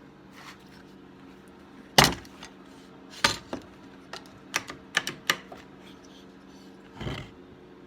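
Metal tools and parts clinking and knocking on a workbench: about seven sharp metallic clanks at uneven intervals, the loudest about two seconds in, over a steady low hum.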